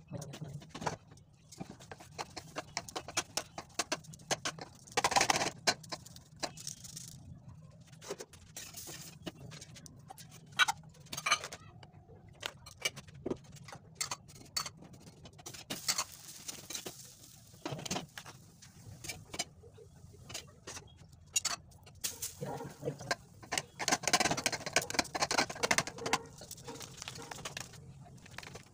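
Hands patting a ball of maize-flour dough flat between the palms to shape makki ki roti: irregular clusters of soft slaps, with scattered sharp clicks in between.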